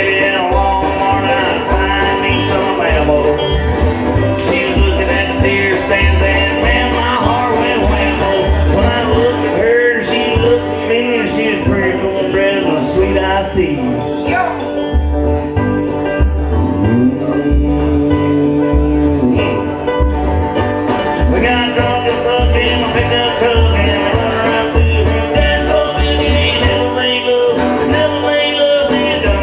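Live acoustic country/jug band playing an instrumental passage: banjo picking and strummed acoustic guitar over a steady washtub-bass beat, with a dobro. About 17 seconds in, a sliding held note rises, holds and falls away.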